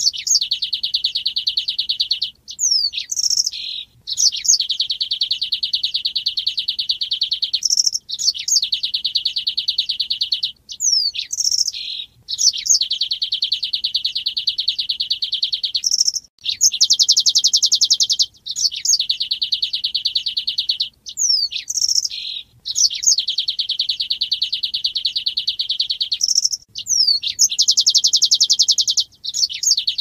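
Male streaked weaver (manyar) singing in full voice: long, rapid, buzzy trills lasting a few seconds each, broken every few seconds by a brief pause with a few quick, sharp sliding chirps.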